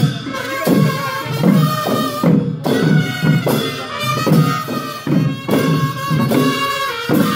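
Newar Gunla Bajan ensemble playing traditional music: two-headed barrel drums beat a steady rhythm of about two strokes a second under a sustained wind-instrument melody.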